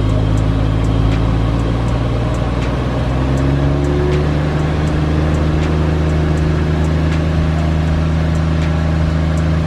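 Toyota Mark II Tourer V's turbocharged 1JZ straight-six idling through its stock exhaust, with its large muffler and two resonators: a steady low drone at the tailpipe. Its pitch rises slightly about three to four seconds in.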